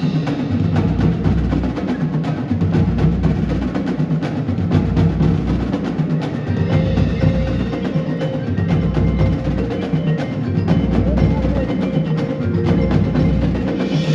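Percussion-led music: a dense run of quick sharp strikes with mallet-instrument tones over a pulsing low drum part.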